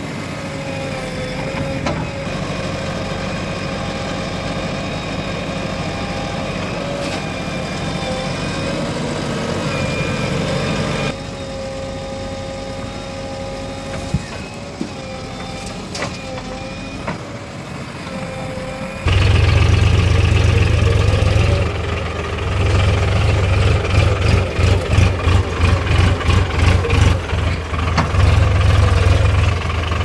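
JCB 3DX backhoe loader engine running with a steady hydraulic whine while it loads soil into a tractor trolley, with a few knocks. About two-thirds in, a much louder, deeper tractor engine drone takes over, heard up close, and it pulses rapidly near the end.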